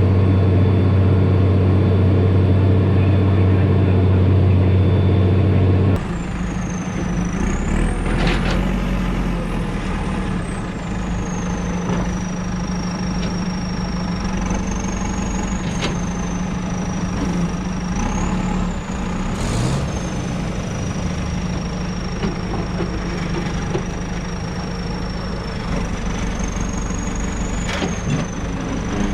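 Large tractor engine running steadily. About six seconds in, the sound cuts abruptly to another running engine with a high whine that wavers up and down in pitch.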